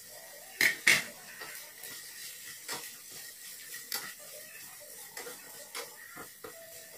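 A cooking utensil clacking against a small frying pan while carrot and radish strips are stirred: two sharp clacks about a second in, then scattered lighter taps.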